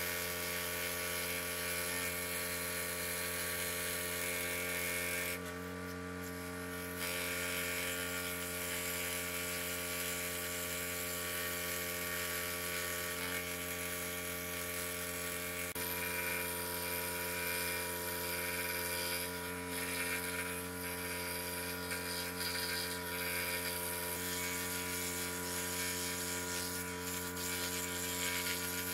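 Scroll saw running, its blade cutting through wood along a paper pattern: a steady motor hum under a continuous cutting hiss. The cutting hiss eases for a second or two about five seconds in.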